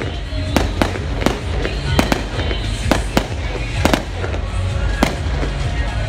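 Aerial fireworks bursting overhead: about ten sharp bangs at irregular intervals over six seconds, with crackle in between.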